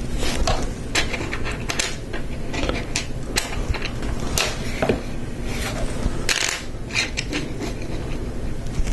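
Hard plastic Lego Technic parts clicking and knocking as they are pushed together by hand: a string of irregular sharp clicks.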